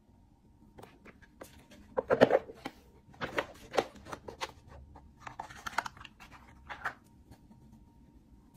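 Cardboard gift boxes and packaging handled by hand: taps, scrapes and rustling. The sharpest cluster comes about two seconds in, and scattered handling sounds follow for the next five seconds.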